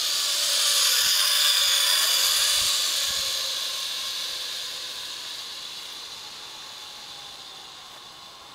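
Zipline trolley's pulley wheels running along the cable: a steady whirring hiss that swells, loudest about a second and a half in, then fades away steadily as the trolley rolls off down the line.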